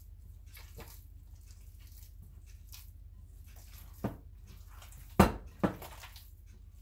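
Hands squishing and kneading raw ground-beef meatloaf mixture in a glass bowl: faint wet squelches throughout, then three sharp, louder sounds about four to six seconds in, the loudest a little past five seconds.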